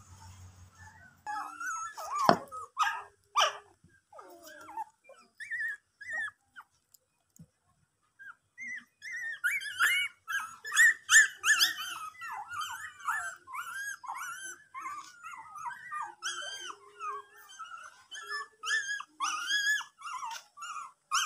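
A litter of young puppies whimpering and squealing: many short, high-pitched cries that overlap and come thick and fast from about nine seconds in. A few sharp knocks sound about two to three seconds in.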